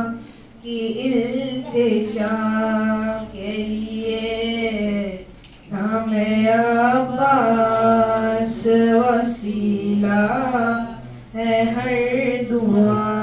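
A boy chanting a devotional recitation into a handheld microphone, in long held melodic phrases with brief pauses between them.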